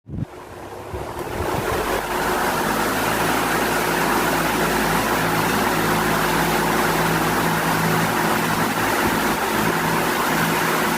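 Qualitas Q500C pedestal fan starting up suddenly, its airflow building over about two seconds, then running steadily: a rushing of air over a low motor hum.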